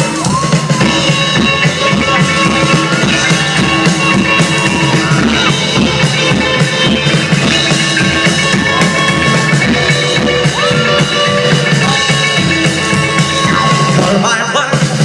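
Rock music with drums and a sung or lead melody, loud and steady throughout.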